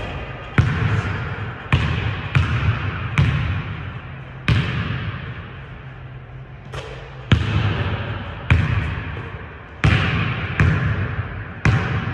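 A basketball bouncing on a hardwood gym floor about a dozen times at uneven spacing, each bounce followed by a long echo from the large hall.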